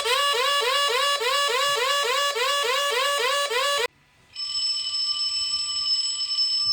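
Electronic emergency alert tones: a rapidly repeated rising whoop, about three sweeps a second, for about four seconds. After a brief gap a steady multi-pitch alert tone sounds to the end.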